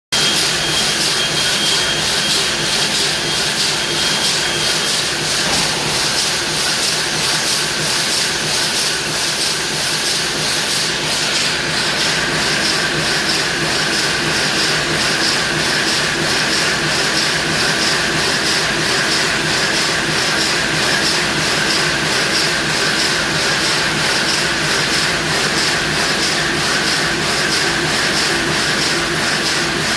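Toksel Taurus-80 marble gangsaw running, its multi-blade frame sawing back and forth in a steady, evenly pulsing mechanical noise with a hiss over it.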